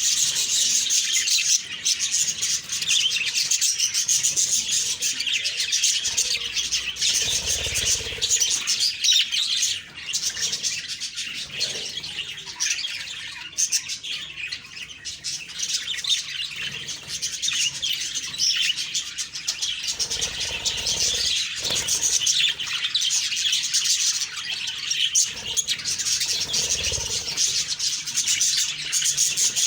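Several budgerigars chirping and chattering without pause, many fast high-pitched calls overlapping.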